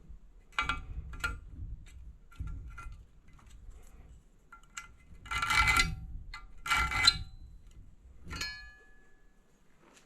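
Pieces of steel stock clinking and clanking as they are handled and sorted, about six separate strikes that ring with a metallic tone. The last strike, about eight seconds in, rings on briefly.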